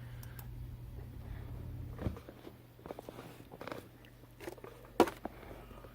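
A low steady hum that stops about two seconds in, then a few small clicks and handling taps, with one sharper click near the end.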